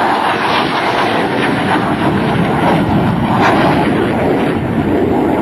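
F-104 Starfighter's General Electric J79 turbojet, loud jet noise with a dense crackle as the fighter passes low and climbs away.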